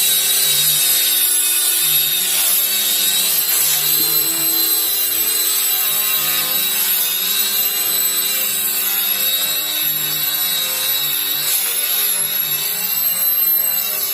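Electric power sander running against wood, a steady abrasive rubbing with a high motor whine that wavers slightly as pressure on the workpiece changes.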